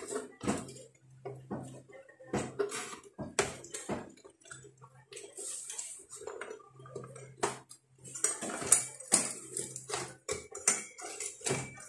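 Repeated metallic clinks, knocks and rattles as an amplifier's finned aluminium heatsink is handled and fitted back into its metal chassis, busiest in the last few seconds.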